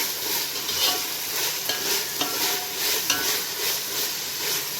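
Masala paste of ginger, garlic, coriander seeds and cumin frying in hot oil with onions, sizzling steadily, with a utensil scraping through it every half-second or so as it is stirred.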